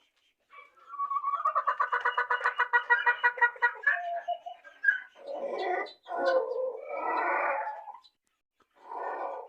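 Chickens calling loudly. A long pitched call with a rapid pulsing starts about a second in and lasts some three seconds, followed by several harsher, noisier squawks, the last one near the end.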